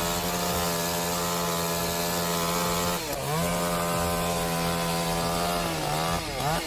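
Chainsaw running at high, steady revs, its pitch dropping sharply and recovering twice, about three seconds in and again near the end.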